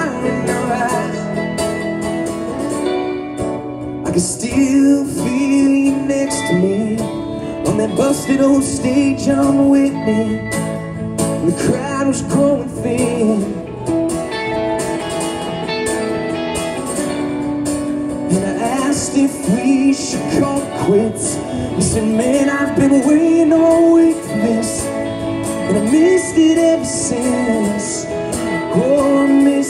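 A man singing live while strumming an acoustic guitar, amplified through a stage PA.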